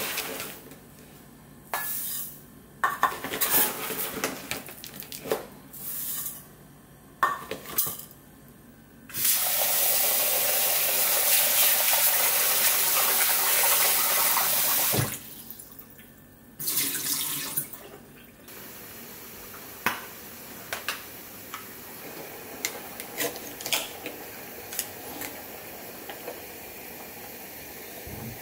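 Scoops of dry rice poured into a pot in short rattling bursts, then a kitchen tap running into the pot while the rice is washed by hand. The tap is the loudest part, about six seconds long. After that comes a steady faint hiss with scattered small clicks and scrapes.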